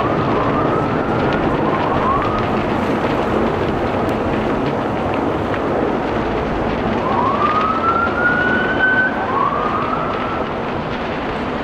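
Emergency vehicle siren sounding in rising sweeps, two near the start and stronger ones from about seven seconds in, over a steady rushing background noise.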